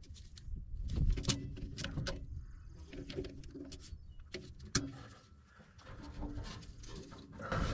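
Hand tools clicking and clinking against a hydraulic control valve body as vice grips are worked on a seized adjustment screw, with a bird calling in the background.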